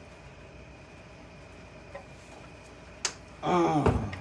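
A sharp click about three seconds in, then a man's short groan falling in pitch near the end, over a faint steady high tone.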